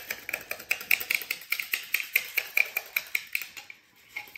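Fast, even hand-scraping strokes, about five a second, on the metal gasket face of a Cat 16-liter engine, clearing off old gasket and sealant. The strokes fade out near the end.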